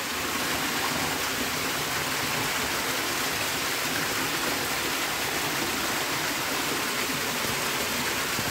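Steady rush of flowing water, an even hiss with no separate splashes.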